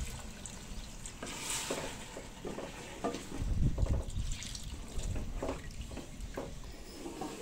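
Water poured from a steel tumbler into a metal pot of chicken curry while a wooden spatula stirs it, scraping and knocking against the pot several times.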